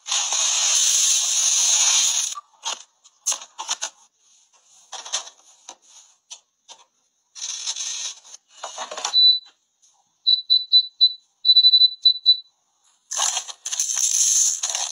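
A run of kitchen-appliance sounds: a loud hiss at the start, scattered clicks and scrapes, a string of short high electronic beeps about two thirds of the way through, then a grain dispenser rattling out dry beans and grains near the end.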